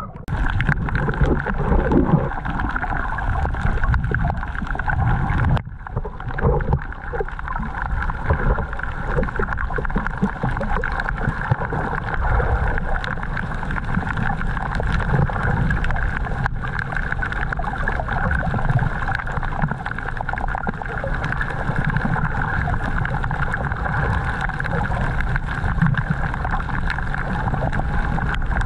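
Underwater sound picked up by a submerged action camera: a steady muffled rumble of moving water with a constant hum over it, and a few bumps in the first couple of seconds as the camera goes under.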